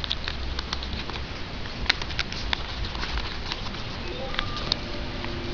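Sheet of origami paper being folded and creased by hand: scattered crisp crackles and taps of the paper over a steady background hiss.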